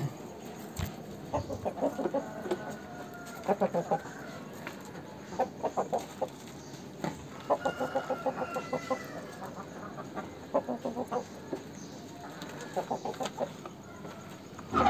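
Aseel chickens clucking in short runs of quick clucks, about six runs spread a few seconds apart.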